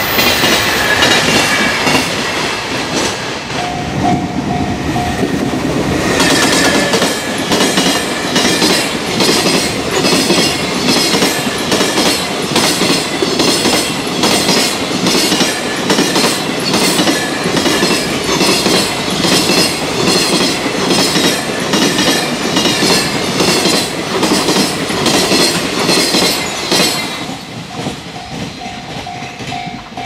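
Freight train's wheels clattering over rail joints in a long, rapid, even clickety-clack rhythm as the wagons pass, dying down near the end. A steady tone sounds briefly about four seconds in and again near the end.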